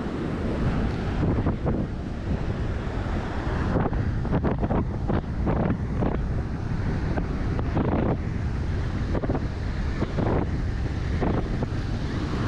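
Wind buffeting the microphone over the wash of surf, with uneven gusty thumps.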